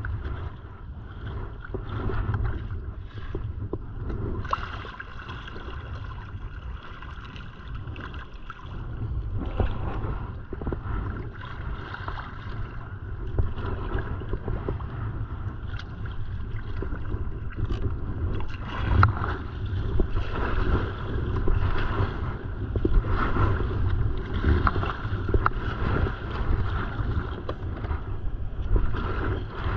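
Sea kayak being paddled on open lake water: paddle blades splashing and water sloshing against the hull, over a steady rumble of wind on the microphone. The splashing grows livelier in the second half.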